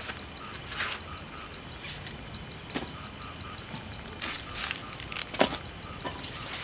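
Insect chirping outdoors in a steady, high pulsed rhythm of about four chirps a second, with a few short sharp clicks or knocks.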